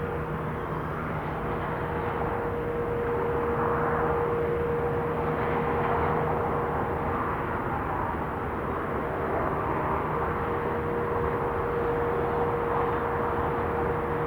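Jet airliner engine noise at the airfield: a steady rushing sound with a constant droning tone through it.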